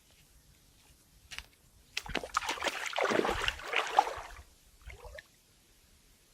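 Water splashing and sloshing in a dense burst lasting about two seconds, with a brief splash before it and another after.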